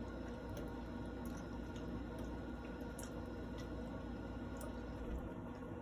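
Faint wet chewing and small mouth clicks from eating soft food such as macaroni and cheese, over a steady low background hum.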